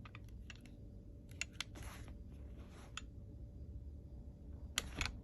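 Glock 19 pistol being handled: scattered light clicks and knocks, with a sharper double click near the end.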